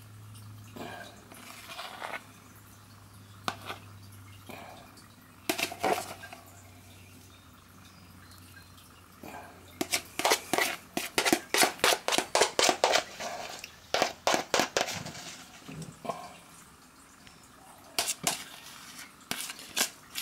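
A kitchen utensil knocking and scraping against a bowl as thick ice cream mixture is scooped and tapped off into a tub. Scattered knocks, with a quick run of about three or four taps a second in the middle and a few more near the end.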